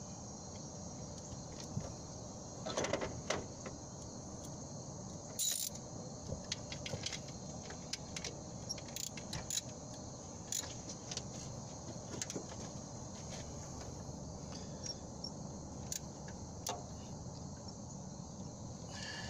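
Socket ratchet clicking in short, irregular spells with occasional metal clinks as a 14 mm alternator mounting bolt is tightened, over a steady background chirring of crickets.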